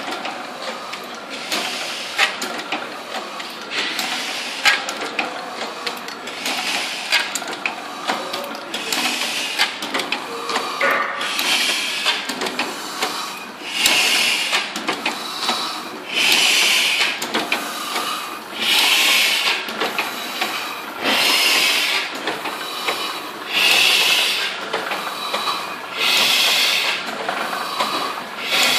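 Heidelberg GTP hot foil platen press running: a steady mechanical clatter with a burst of hiss about every two and a half seconds, the bursts growing much louder about a third of the way in.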